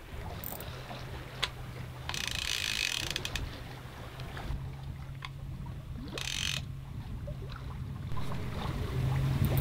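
Conventional trolling reel on a big-game fishing rod being worked by hand, its gears and ratchet clicking. About two seconds in there is a louder burst of fast clicking lasting around a second, and a shorter one just past six seconds.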